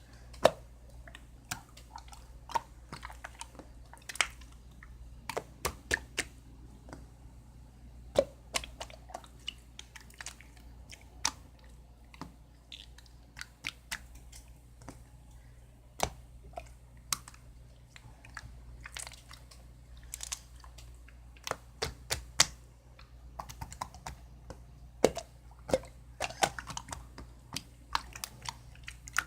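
Irregular sharp clicks and taps at uneven intervals, some much louder than others, over a faint low hum.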